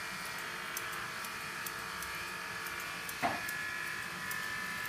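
Grooming scissors snipping through an Airedale Terrier's leg coat, a run of light, quick clicks, over a steady electric hum. About three seconds in there is one brief, louder sound.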